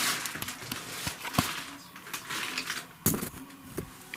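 Handling noise from a handheld camera being moved about: rustling with a few sharp clicks and knocks, the loudest about three seconds in.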